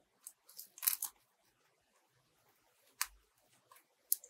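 Foam fruit-net strips crinkling and crackling faintly in the fingers as a knot is tied around them: a cluster of short crackles about a second in, then two single sharp snaps near three and four seconds.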